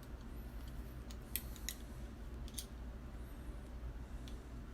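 A few light metallic clicks and slides as a brass rifle case is measured with calipers, over a steady low hum.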